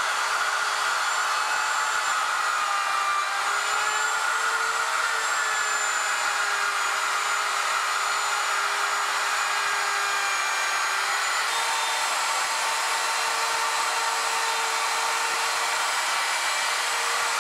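Handheld fixed-base router running with an ultra-small bearing-guided pattern bit, routing wood along a 3D-printed template. A steady high whine over cutting noise, its pitch sagging and recovering slightly as the bit loads and unloads.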